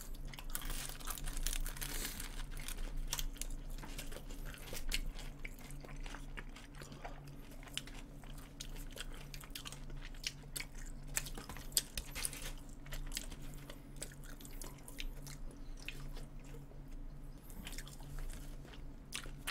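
Close-miked chewing and biting of a McDonald's burger and french fries: irregular small wet clicks and crunches over a low steady hum.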